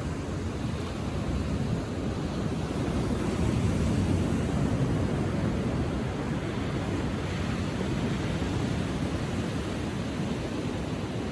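Ocean surf breaking and washing onto a sandy beach at low tide, a continuous rushing hiss that swells a little about three to five seconds in.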